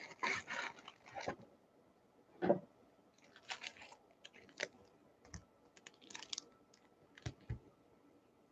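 Faint, intermittent crinkling and rustling of plastic packaging being handled, in short bursts with a few light knocks, dying away near the end.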